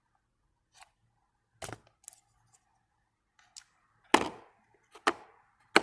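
Steel sockets clinking and knocking as they are handled and set down, about six sharp metallic clicks, the loudest about four seconds in.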